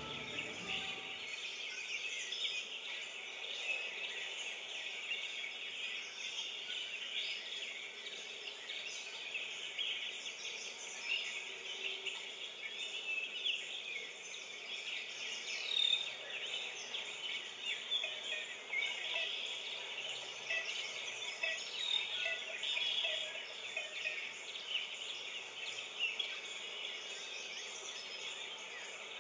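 Nature ambience: a dense chorus of bird chirps and calls over a steady hiss.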